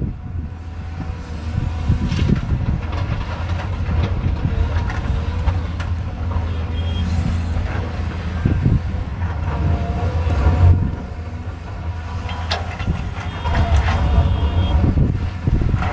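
Cat 320 excavator's diesel engine running with a steady low drone, with scattered knocks and clanks from the bucket working stone. A few brief high squeals come through, about halfway and again near the end.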